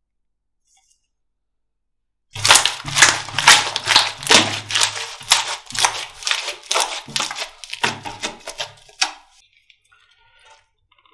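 Slime being pressed and squeezed by hand, crackling and popping in a quick run of sharp clicks, two or three a second. It starts a couple of seconds in and dies away near the end.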